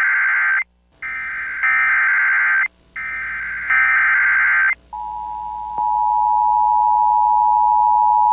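Emergency Alert System broadcast signalling: the end of one buzzy SAME data-header burst and two more, each a second or two long with short gaps, then from about five seconds in the steady two-tone EAS attention signal. Together they mark the start of a new emergency alert.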